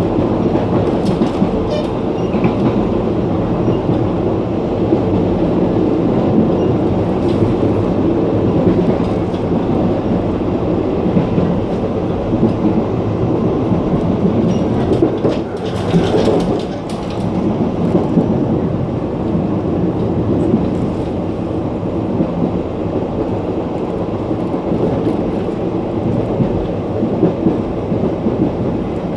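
Wheels and running gear of a Puyuma Express (TEMU2000 tilting electric train) heard at the gangway between two cars while running: a steady rumble of wheels on rail with scattered clicks and knocks. About halfway through the sound dips briefly, then swells into a louder rush.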